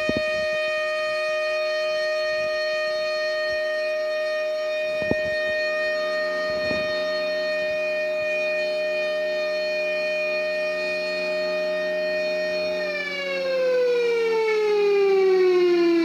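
Federal Signal Thunderbolt 1000 outdoor warning siren sounding a test, holding one steady tone. About three-quarters of the way through, its pitch starts falling steadily as the siren winds down.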